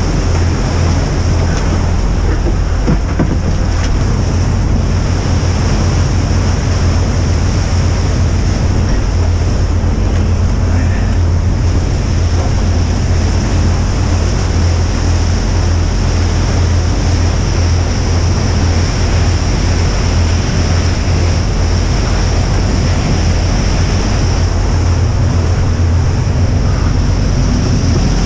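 Rescue boat under way at speed in a choppy sea: a steady low engine drone under rushing water and spray along the hull, with wind buffeting the microphone.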